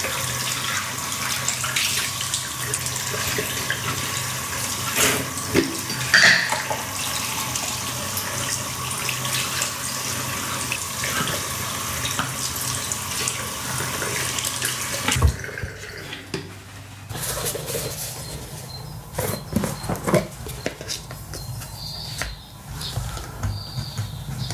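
Tap water running into a bathroom sink, splashing as plastic containers and a lid are rinsed under it. About fifteen seconds in the water stops abruptly, and irregular light clicks and scrapes follow as a pointed tool pierces holes in a plastic lid.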